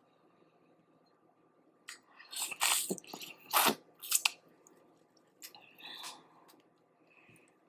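Boiled crawfish being eaten: a run of short, wet cracks, clicks and smacks of shell and mouth about two seconds in, and a few more about six seconds in.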